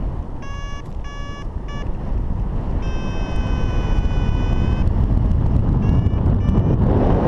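Wind buffeting the microphone in flight, with a paragliding variometer beeping over it: three short beeps, then one long steady tone, then a couple of short higher-pitched beeps near the end. The wind grows louder in the last seconds.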